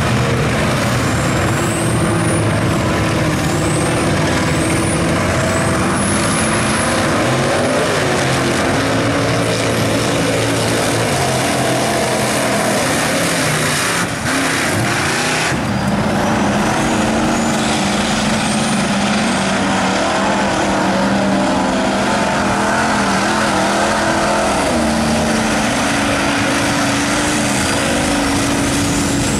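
Lifted mud trucks' engines running hard at high revs as they plough through a mud pit. About halfway through the sound changes abruptly as a different truck takes over.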